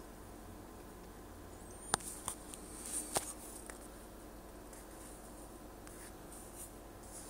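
Handheld camera handling noise: faint rubbing and a few sharp clicks, the loudest about two seconds in and another about a second later, over a steady low room hum.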